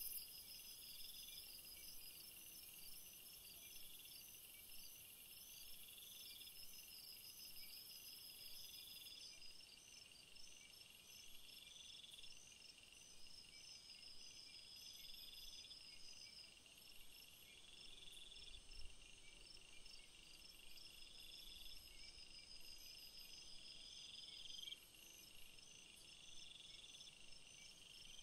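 Faint insects chirping: a high chirp repeating about every one and a half to two seconds over a steady, higher pulsing trill.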